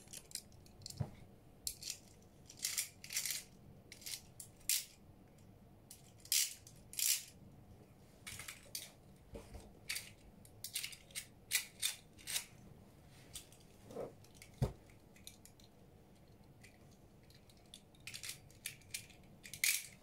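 Hard plastic and metal Beyblade parts being handled, making light scattered clicks and clatters with a couple of duller knocks.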